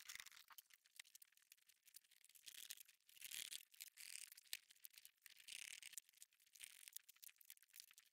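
Safety wire pliers twisting the hull's wire stitches tight: faint rattling whirs as the pliers spin, the longest about three and five and a half seconds in, among light clicks of the tool on the wire.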